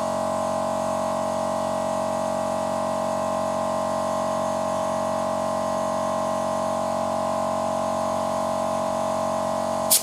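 Workshop air compressor running steadily while it inflates a car tyre: an even, unbroken hum with a strong steady tone. At the very end there is one brief, sharp sound.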